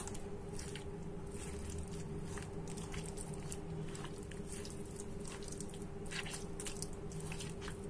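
A hand squishing and kneading raw chicken in a wet spice paste on a chopping board: irregular soft squelches and smacks, over a steady low hum.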